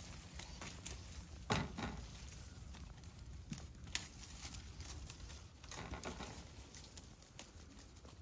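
Pomegranate tree leaves and twigs rustling and crackling as a hand pulls fruit from the branches, with scattered sharp snaps. The loudest snap comes about one and a half seconds in.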